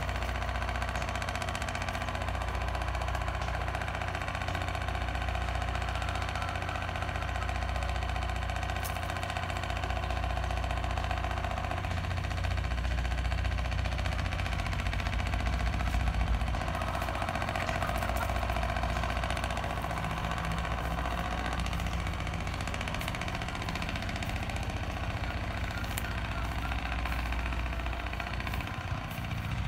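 A motor running steadily, with a low rumble underneath that swells and fades.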